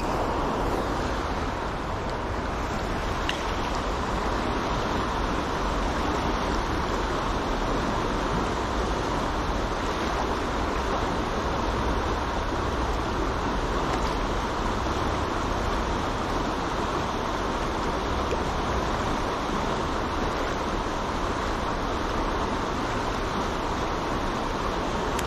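Fast, high river water rushing steadily over riffles, an even wash of water noise with a low rumble underneath.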